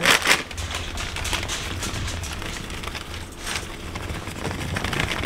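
Plastic bag of mini marshmallows crinkling and rustling as they are shaken out over a baking dish: a rapid run of small crackles, loudest right at the start.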